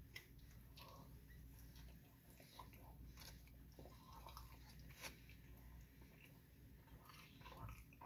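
Faint chewing of a person eating a fast-food burger, with a few soft, scattered mouth clicks.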